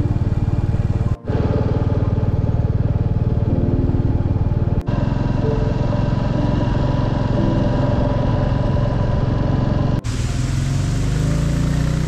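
Royal Enfield Classic 350's single-cylinder engine running steadily under way. The sound drops out for an instant about a second in, near five seconds and near ten seconds. After the last break the sound turns hissier.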